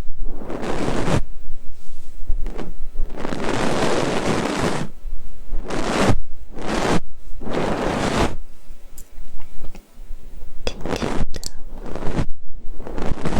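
Ear-cleaning ASMR: a fluffy ear-pick brushing over the ear, a series of soft rustling sweeps with short gaps between them, then a few light clicks and taps in the latter part.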